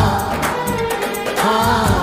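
Bollywood film song music: a melody line whose notes bend and waver in pitch, over a sustained bass and percussion hits.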